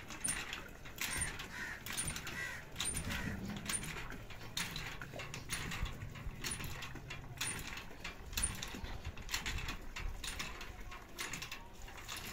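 Metal hand pump being worked by its long handle, clanking and squeaking with each stroke at about one stroke a second, as water pours into a plastic bucket.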